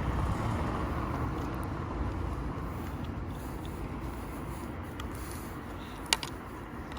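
Steady outdoor background rumble, with a few faint ticks and one sharp click about six seconds in, from small parts of a car's wing mirror being handled and fitted by hand.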